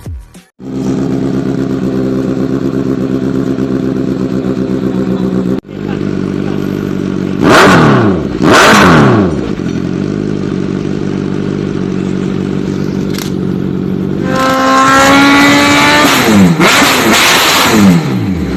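Inline-four motorcycle engine idling, blipped twice in quick succession about seven and eight seconds in, then held at higher revs for a few seconds near the end before dropping back to idle.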